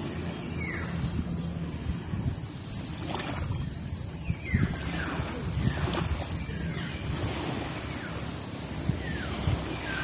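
Outdoor nature ambience: a steady, high-pitched insect drone with short, falling bird chirps every second or so, over a low background rumble.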